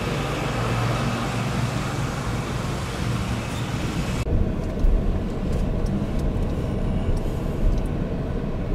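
Steady road and engine noise of a car driving slowly, heard from inside the cabin. About four seconds in the high hiss drops away abruptly, leaving a low rumble.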